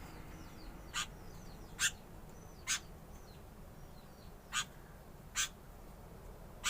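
Caged songbirds calling: a series of about six short, sharp chip calls, roughly one a second with a gap in the middle, over fainter repeated small chirps in the first second or so.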